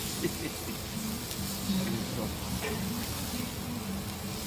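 Sauce-basted chicken sizzling over hot charcoal in a rotating rotisserie grill basket: a steady sizzle.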